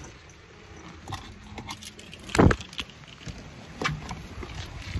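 Handling noise from a phone being moved around inside a car: rubbing and light knocks, with one louder thump about two and a half seconds in and a smaller one near four seconds.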